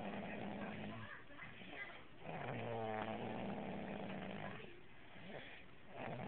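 Snoring: about two slow breaths, each a low droning snore, with quieter stretches between them.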